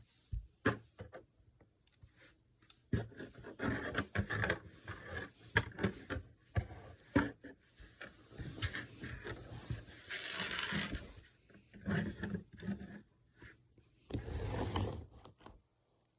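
Plastic Lego bricks being handled and pressed together: a string of small clicks and scrapes, with longer scraping stretches about ten seconds in and again near the end.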